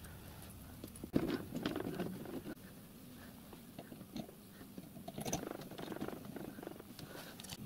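Hands fitting small steel brake parts onto a miniature-railway riding car's wheelset and brake hanger: scattered light clicks, taps and scrapes. They come in two bunches, about a second in and again about five seconds in.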